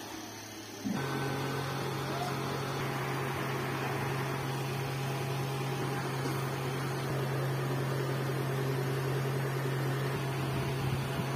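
Steady machine hum with a low tone, starting abruptly about a second in.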